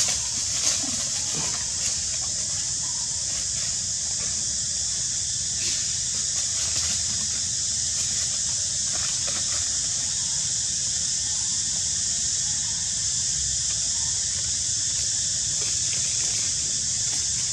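Steady high-pitched drone of insects, with a low rumble underneath and a few faint ticks.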